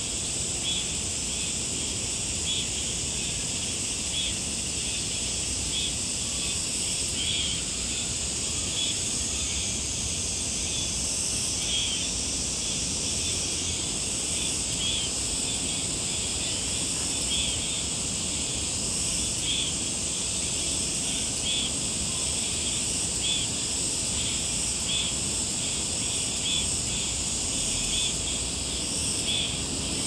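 Summer insect chorus: a steady high-pitched buzzing with a short chirp repeating roughly once a second, over an even low background hiss.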